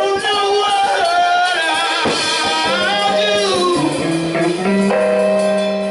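Gospel music: a voice sings long, sliding, held notes over guitar and drums.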